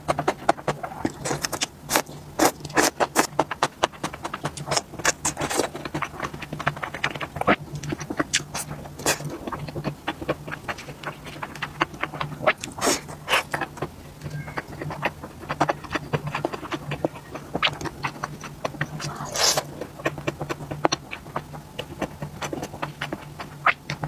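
Close-miked eating sounds: wet chewing, lip smacking and slurping of spicy skewered food such as enoki mushrooms and sausage, a dense run of quick clicky mouth noises coming in clusters. A steady low hum runs underneath.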